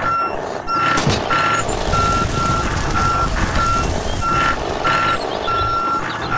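A truck's reversing alarm beeping steadily, about three beeps every two seconds, over a continuous low rumble.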